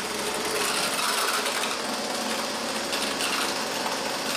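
Hitachi RB24EAP two-stroke handheld leaf blower idling steadily with a fast rattle: the fan's securing nut has worked loose, which lets the fan knock at idle.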